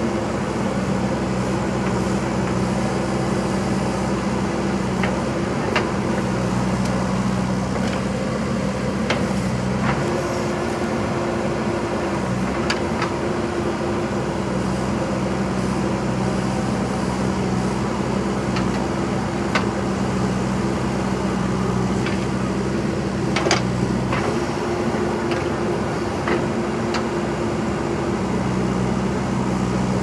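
JCB 3DX backhoe loader's diesel engine running steadily while the backhoe arm digs, its note changing about ten and again about twenty-four seconds in. Sharp knocks come now and then, a few seconds apart, from the bucket and arm at work.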